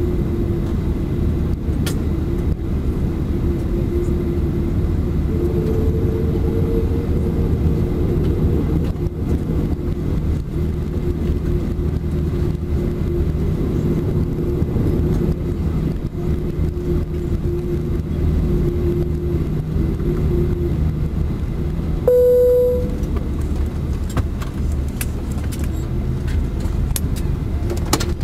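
Steady low drone inside the cabin of a Boeing 737-400 standing at the gate, with a humming tone that stops about three-quarters of the way through. Just after, a single short cabin chime rings, followed by a few light clicks.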